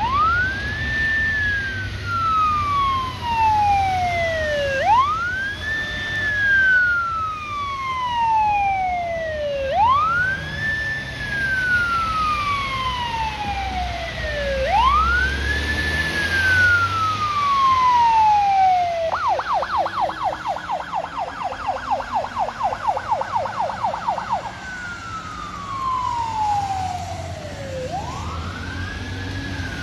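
Fire engine's electronic siren on wail: it rises quickly and then falls slowly, about every five seconds. Some two-thirds of the way in it switches to a fast yelp for about five seconds, then goes back to the wail and starts a new rise near the end. Engine rumble and tyre hiss from traffic on the wet road run underneath.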